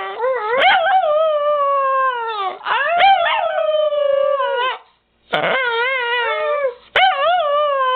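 Miniature pinscher howling: a string of long, wavering howls, each lasting one to two seconds, with a brief pause about five seconds in.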